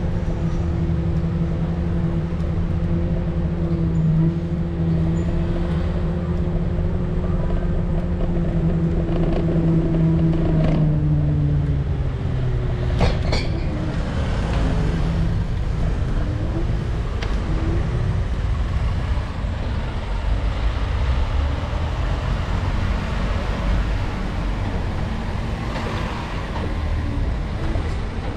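Electric kick scooter on the move: a steady motor whine over low wind and road rumble. About eleven seconds in, the whine drops in pitch and fades as the scooter slows, leaving road noise and a few sharp clicks and rattles.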